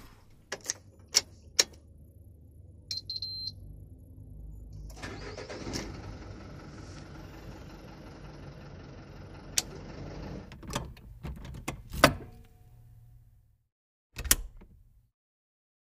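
Sharp clicks and knocks, a brief high beep, then a car engine starting about five seconds in and idling steadily inside the cabin, with a few more clicks over it. It cuts off abruptly near the end, followed by one more knock.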